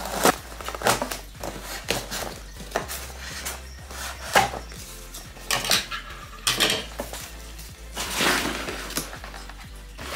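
Scissors cutting packing tape on a cardboard box, then the cardboard flaps being pulled open and a boxed radio in foam packing blocks lifted out: a string of sharp clicks, scrapes and knocks, with a longer rustling scrape about eight seconds in.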